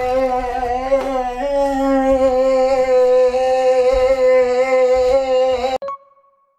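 A man singing one long held note, steady in pitch apart from a small step up about a second and a half in. It cuts off suddenly near the end.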